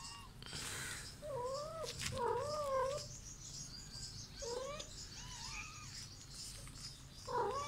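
A cat meowing: about five short calls with a wavering, up-and-down pitch. Two come close together in the first few seconds, two more fall in the middle and one comes at the end.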